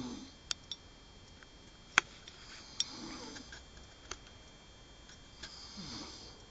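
A person snoring in sleep: two soft, rough snoring breaths about three seconds apart. Several sharp clicks fall between them.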